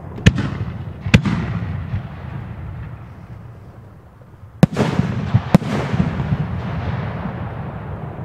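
Fireworks going off. Two sharp bangs come early, then after a short lull two more come about five seconds in, with crackling and a rumbling echo trailing after each.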